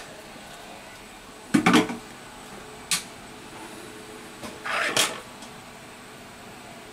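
Tools being handled and set down on the repair bench: a clunk about one and a half seconds in, a sharp click about three seconds in, and a rustling knock around five seconds, over a steady hiss.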